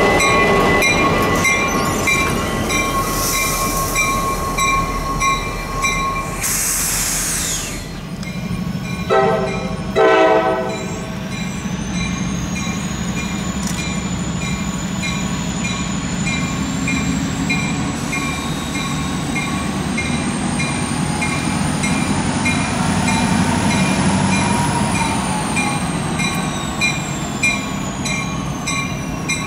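EMD diesel locomotive running past, then two short train horn blasts about nine seconds in. A tank-car freight train then rolls by with a steady rumble and a high wheel squeal that slowly rises and then falls.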